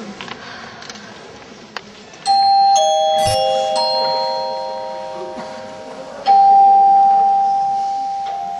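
Bell-like chime notes: four struck in quick succession about two seconds in, each ringing on and slowly fading, then a single louder note about six seconds in and another near the end, over faint room noise.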